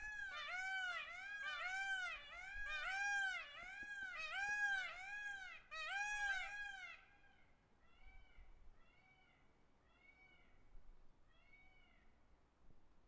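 Peacock calling: a rapid series of arched, mewing calls, about two a second for some seven seconds, then a fainter run of about six similar calls.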